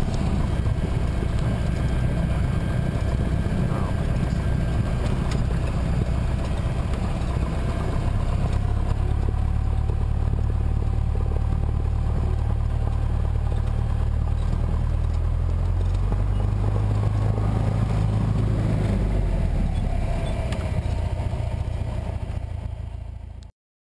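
Single-engine light aircraft's piston engine and propeller running steadily at low power as the plane taxis on the ground, heard from inside the cockpit. The sound fades out near the end and cuts off.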